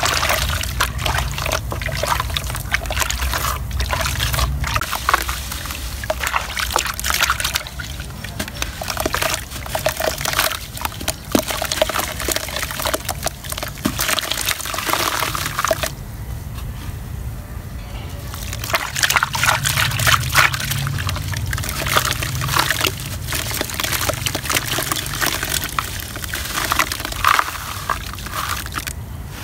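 Hands squeezing and churning thick red-dirt mud water in a plastic tub, with wet squelches, sloshing and splashes. Crumbled lumps of red dirt drop into the water, with a short lull past the middle.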